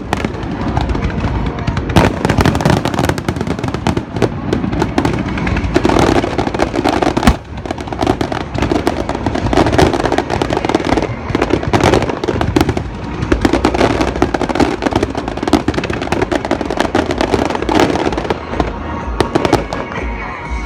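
Fireworks display: a dense barrage of aerial shells bursting, many sharp bangs following one another in quick succession and overlapping, thinning out a little near the end.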